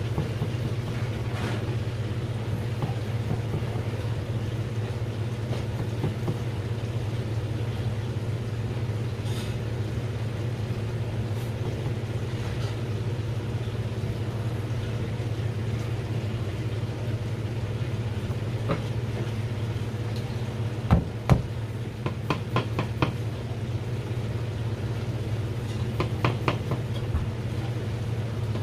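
Steady low mechanical hum, with a knife tapping and clicking on a plastic cutting board as cutlassfish fillets are sliced for sashimi: two sharp knocks about two-thirds of the way in, then short runs of light clicks.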